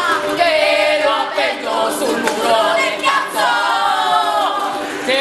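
A group of women singing together, loud and full-voiced, with pitches sliding up and down on long sung notes.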